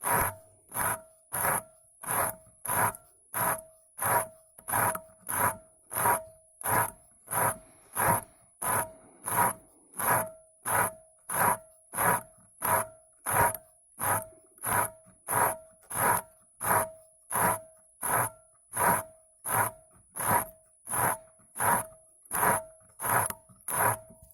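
A cutting tool scraping the glass envelope of an LED filament bulb by hand in steady back-and-forth strokes, about three strokes every two seconds, each with a ringing tone.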